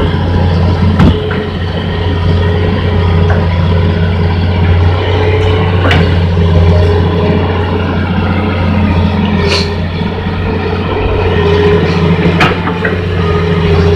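Hitachi Zaxis 210 excavator's diesel engine running steadily under load, with a steady hydraulic whine over the low engine hum, while it digs mud. A few sharp clanks come through, about a second in, near the middle and twice in the second half.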